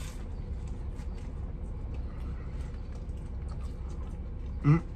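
Steady low rumble of a shuttle bus's idling engine, heard from inside the cabin, with faint clicks of someone chewing a crispy sandwich.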